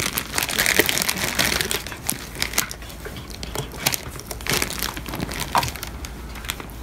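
Plastic packaging bags crinkling as hands move and handle bagged squishy toys in a box: a dense run of irregular crackles for the first couple of seconds, then sparser rustles.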